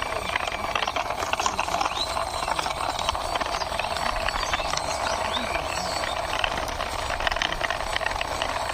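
A toy car's small wheels rolling and rattling along a wall as it is pushed by hand, in many short clicks, over a steady background noise.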